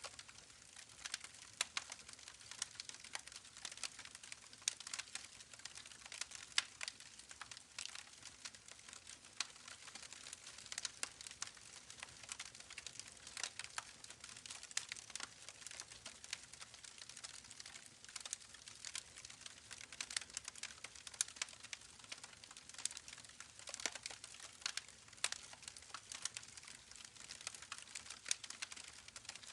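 Campfire crackling: dense, irregular pops and snaps over a soft hiss.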